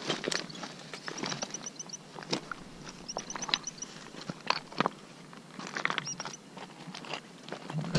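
Footsteps on stony ground and through grass: irregular steps, knocks and scuffs of people walking down a rocky bank.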